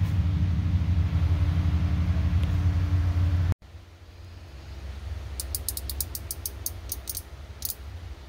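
A 342 stroker V8 runs steadily at idle. After an abrupt cut, a thumb-throttle lever clicks about fifteen times in quick succession as it is moved up and back through its settings.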